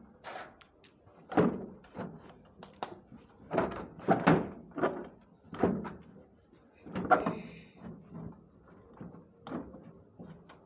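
A series of about a dozen irregular knocks and clunks, the loudest clustered near the start, the middle and about seven seconds in.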